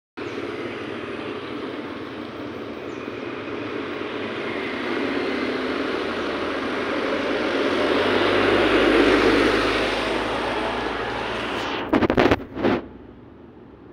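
Engine noise of a passing motor vehicle, swelling to a peak about nine seconds in and then fading. A few sharp knocks come near the end.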